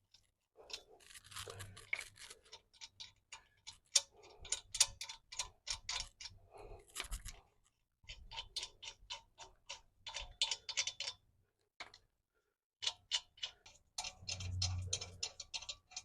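Rapid runs of light metallic clicking as loosened wheel nuts are spun off the wheel studs, in several bursts with short pauses. A low steady hum joins near the end.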